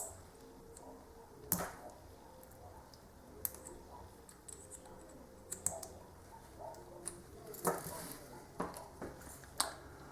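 Scattered small clicks and knocks from a pocket knife and its lanyard clip being handled, about half a dozen over the stretch.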